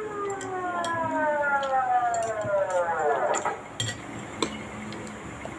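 A siren winding down, its wail falling steadily in pitch and dying away about three seconds in. Spoons and forks clink against plates throughout.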